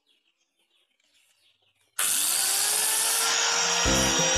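Electric angle grinder switched on about halfway through, its whine rising as the motor spins up, then running loud with a nail held in pliers against its abrasive disc.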